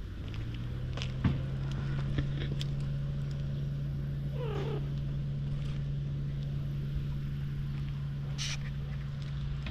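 A stray cat gives one short, falling meow about halfway through. A steady low hum runs underneath throughout, with a single sharp knock about a second in.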